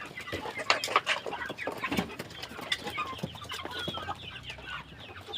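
A flock of young chicks peeping, many short high chirps overlapping, with scattered light taps among them.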